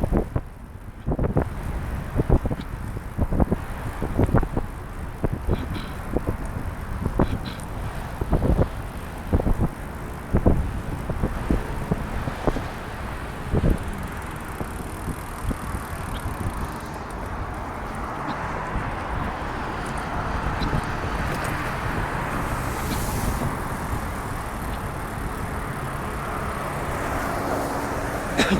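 Riding a trike on a wet road: wind buffets the microphone in irregular low thumps through the first half, then a steady hiss of tyres on wet pavement builds and carries on through the second half.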